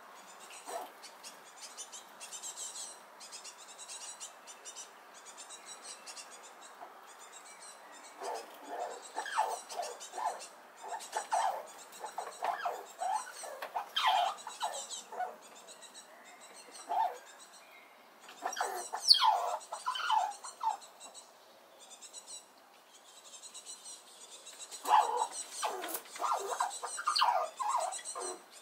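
Eurasian red squirrel giving clusters of short, squeaky calls, starting about a third of the way in, pausing, then coming again near the end, with one call sweeping high. This is the loud squeaking this squirrel makes when another squirrel comes near. Faint, rapid ticking runs underneath before the calls begin.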